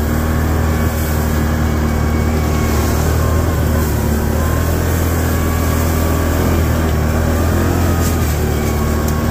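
Can-Am ATV engine running at a steady cruising speed, an even drone with no revving.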